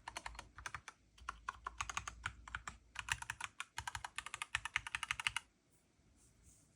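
Fast typing on a Mistel MD600 Alpha split mechanical keyboard with an Alice layout: a quick, dense run of keystroke clicks that stops about two-thirds of the way through.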